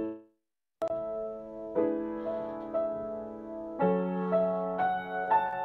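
Slow solo piano music: after a moment of silence, chords are struck about every one to two seconds and left to ring.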